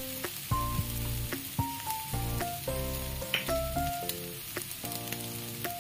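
Chopped onion, coconut, garlic paste and ground spices frying in oil in a kadai, with a steady sizzle. Over it runs background music: a slow melody of held notes changing pitch every half second or so.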